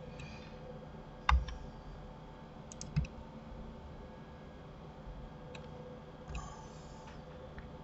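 Clicks of a computer mouse and keyboard: a few short sharp clicks, the loudest about a second in and another at about three seconds, with lighter ones later, over a faint steady hum.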